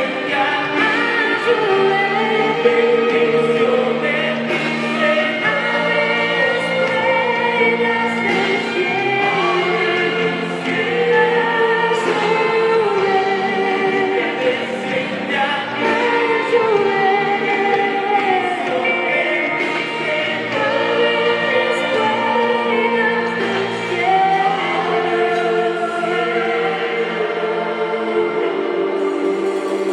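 A worship team singing a Spanish worship song together in chorus over instrumental accompaniment.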